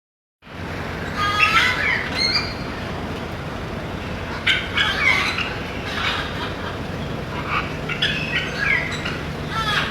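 Birds calling in short, scattered bursts of chirps and quick sliding notes, over a steady low background noise.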